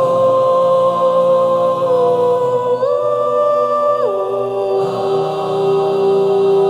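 Background music of long held notes that step up in pitch about three seconds in, then drop to a lower note about four seconds in and hold it.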